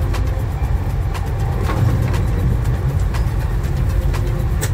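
Passenger train running at speed, heard from inside the carriage: a steady low rumble with frequent short clicks from the wheels on the track.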